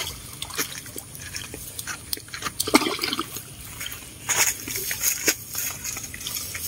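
Water splashing and trickling irregularly as a fishing net is hauled through shallow water, with a few sharper splashes, the loudest about three seconds in.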